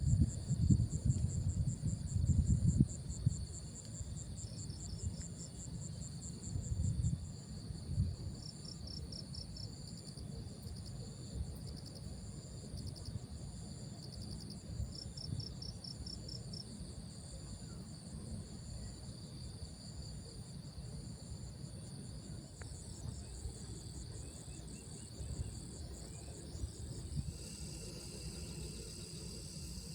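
Insects, crickets among them, chirping in high, rapid pulsed trills that run steadily on. Low thumps and rumbles, loudest in the first three seconds and again around seven seconds in.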